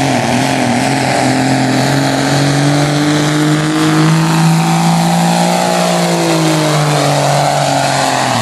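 Dodge dually pickup's engine running hard at high revs under heavy load, pulling the sled in a truck pull. Its pitch climbs slowly, then drops away in the last couple of seconds.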